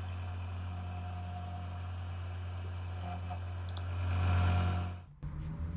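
Tool-and-cutter grinder running with a steady hum while its white cup wheel lightly grinds the edge of a hardened high-carbon steel D-bit; the grinding hiss swells about four seconds in. The sound cuts off abruptly just after five seconds.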